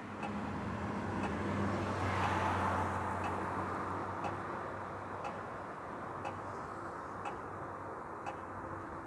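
Night street traffic: a car passes, its tyre and engine noise swelling and fading over a few seconds, over a low steady hum. A sharp tick repeats about once a second throughout.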